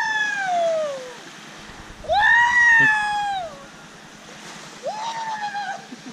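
A person's high-pitched, drawn-out yells, three of them, each rising and then falling in pitch, with the soft wash of small waves underneath.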